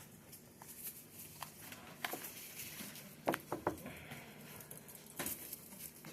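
Faint scattered clicks and light rustling in a quiet room, with a quick run of three clicks about three seconds in.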